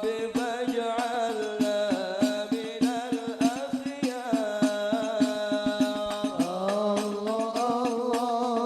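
Sholawat singing with hadrah frame drums (rebana): long, wavering sung lines over a steady, dense beat of hand-struck drums.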